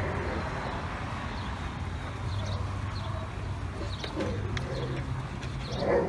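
Outdoor ambience: a steady low hum, with small birds chirping now and then and some fainter, lower calls in the second half.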